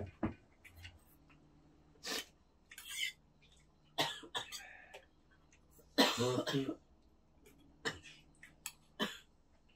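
Scattered eating sounds, short clicks of chopsticks and spoons against metal bowls, with a cough about six seconds in.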